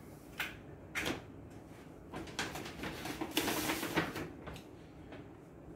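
Two light knocks, then a couple of seconds of rustling and scraping as groceries are rummaged through and a cardboard cereal box is picked up. The rustling is loudest about three and a half seconds in.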